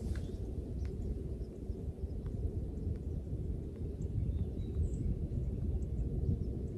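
Low, steady outdoor rumble, with a few faint scattered ticks.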